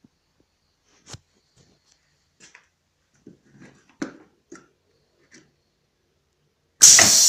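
A few faint clicks and knocks, then near the end a sudden loud rushing hiss as the heat sealer's pneumatic press is triggered from its push-button switch.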